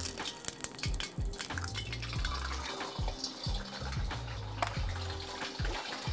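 An egg frying in a generous amount of very hot oil in a wok, bubbling straight away. Bubbling from the moment the egg goes in shows the oil is hot enough to give the egg a crispy base.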